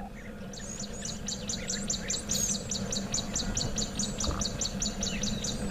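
A bird calling in a fast, even series of short high chirps, about five a second, over a steady low hum.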